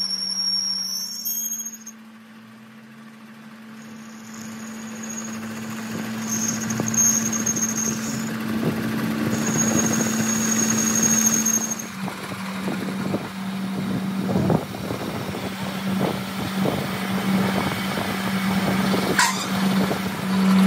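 A machine running with a steady low hum and a high squeal on and off in the first half, then a run of irregular knocks in the second half.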